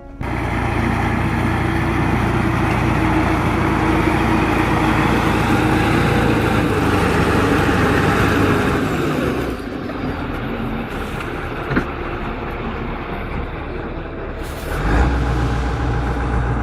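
Heavy vehicle engine running steadily with a low hum and broad mechanical noise. The sound changes abruptly about ten seconds in, losing its highs, and again about fifteen seconds in, when a deeper hum sets in.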